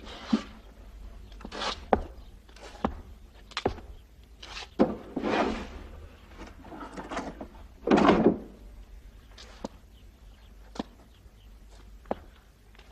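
Handling and movement sounds: footsteps, wooden knocks and clunks, and scrapes as a man gets up from a wooden table and rummages at a wooden sideboard. Single knocks come throughout, with two longer scrapes about five and eight seconds in, the second the loudest.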